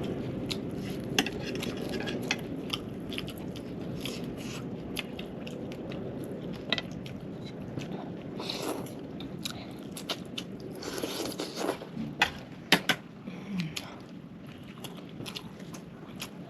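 Biting and chewing crunchy food, with many short, sharp crunches scattered throughout.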